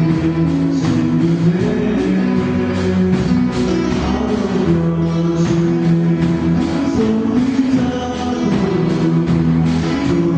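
Live band music from electric and acoustic guitars and keyboard, with a man singing into a microphone in long held notes.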